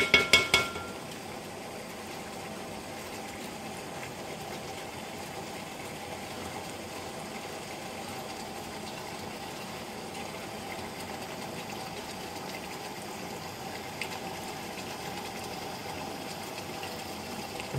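Steady hum and hiss of a kitchen with cooking under way, with a faint steady tone running through it; a few quick ringing clicks at the very start.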